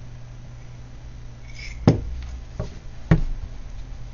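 Three sharp knocks on a tabletop, the first and loudest a little under two seconds in, as oracle cards are handled and laid down, over a steady low hum.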